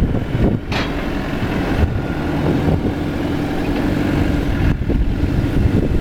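Cat TH83 telehandler's diesel engine running at idle, a steady low rumble, with a steady hum joining in about a second in.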